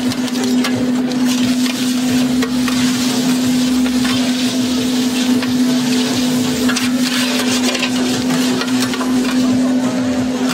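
Metal spatulas scraping and flipping rice noodles on a hot flat-top griddle, with a steady sizzle and irregular scrapes of steel on steel, over a continuous low hum.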